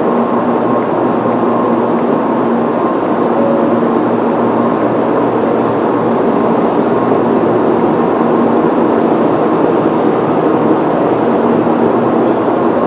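Tokaido Shinkansen train running, heard inside the passenger cabin as a loud, steady rushing rumble with a faint constant hum.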